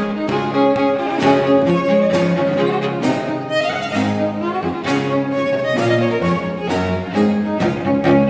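A violin plays an 18th-century Scots tune over a cello bass line, with a baroque guitar strumming chords in a steady rhythm.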